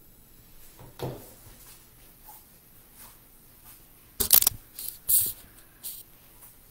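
Handling noise from the recording phone being picked up and moved against clothing: a knock about a second in, then a cluster of loud scuffs and rubs between about four and six seconds.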